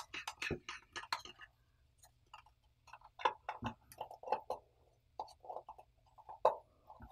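Quick light clicks and short scrapes of a measuring spoon digging into a tin of packed baking powder, dense in the first second or so and then scattered.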